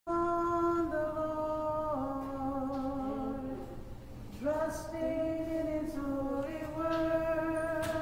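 Slow hymn singing in long held notes that step from pitch to pitch, with no instruments heard.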